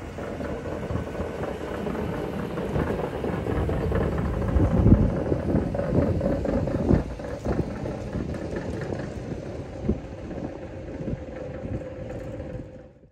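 1959 Cadillac V8 running as the car drives slowly out and past, loudest about five seconds in, with a steady whine from a noisy driveshaft carrier bearing. The sound cuts off suddenly just before the end.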